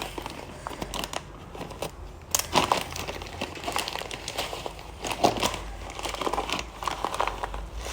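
Plastic packet crinkling and rustling as it is handled, in irregular crackles.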